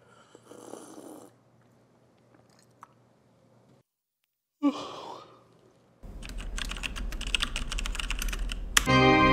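A soft sip from a mug, a yawn about halfway through, then fast typing on a computer keyboard, a dense run of key clicks. Music with held organ-like chords comes in near the end.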